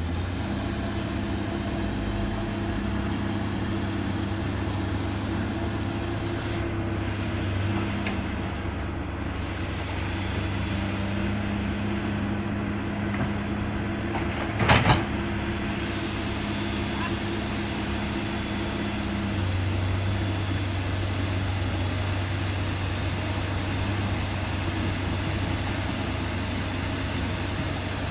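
Excavator's diesel engine running steadily, with one sharp knock about halfway through.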